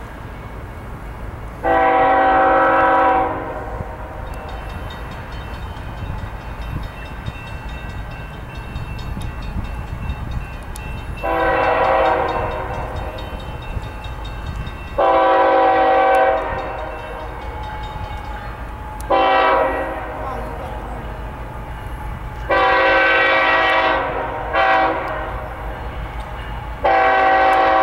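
Diesel locomotive air horn of an approaching Union Pacific freight train sounding seven blasts, mostly long with two short, each a chord of several notes: the crossing warning as the train nears grade crossings. A steady low rumble from the train runs underneath.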